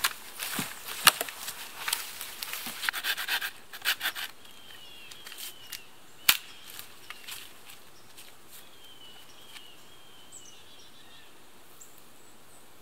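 Hand pruning saw cutting through a dead log, quick rasping strokes for about the first four seconds. Then it goes quiet, with one sharp knock about six seconds in and faint high chirps.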